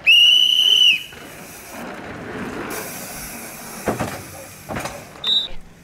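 A whistle blown hard in one steady, shrill blast of about a second. A downhill mountain bike then rushes past with tyre noise, two sharp knocks near the end, and a short second whistle peep just before the end.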